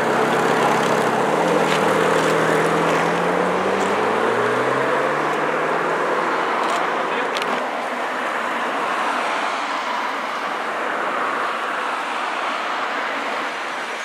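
A car engine running, then rising in pitch as it accelerates over the first few seconds, giving way to steady road traffic noise.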